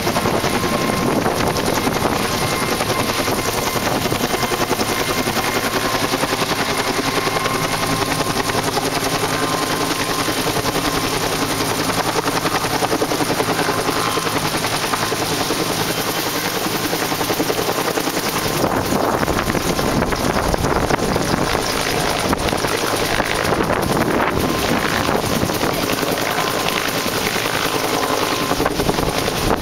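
Firefighting helicopter running close by with a loud, steady rotor and engine noise. About two-thirds of the way through, the low steady hum gives way to a rougher rushing sound.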